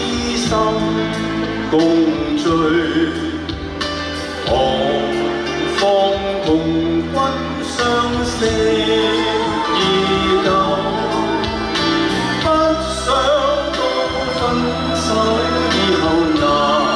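A male singer performing a slow song live into a microphone over backing music.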